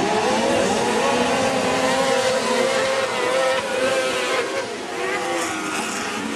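Several motor engines running at once, their pitch rising and falling as they rev.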